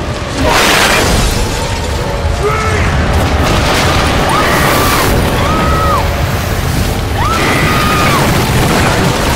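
Tornado wind in a film sound mix: a loud, dense rush of wind and debris over a deep rumble, swelling suddenly about half a second in. Several short high tones rise, hold and fall over it.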